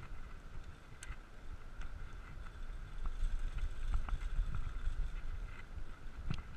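Riding sound from a bicycle rolling on Nimbus 700x35 Armadillo tyres: wind rumbling on the microphone and tyre road noise, with a steady faint hum and a few light clicks.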